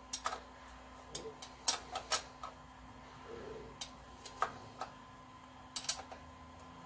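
Scattered sharp metal clicks and clinks, in small clusters, of a wrench working the drain plug on a Harley twin cam's primary case as it is loosened.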